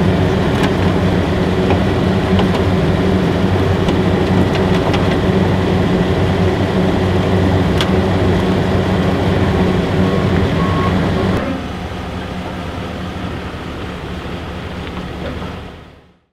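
Ford pickup truck's engine idling steadily, with a couple of light clicks as the plug is handled. The idle sound drops quieter about two-thirds of the way through and fades out near the end.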